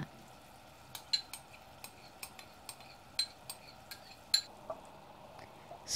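A spoon clicking and clinking against a bowl, a dozen or so light irregular taps, while a yogurt and tamarind mixture is poured from it into a frying pan. Faint sizzling from the pan runs underneath.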